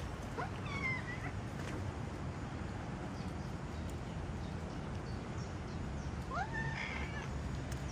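Cat meowing twice: a short falling meow about a second in, then a longer meow that rises and holds, near the end.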